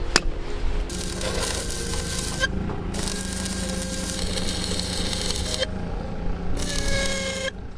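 A single hammer strike on steel, then stick (arc) welding crackling and hissing in three stretches, each one to two and a half seconds long, as a form-tie rod is welded to rebar.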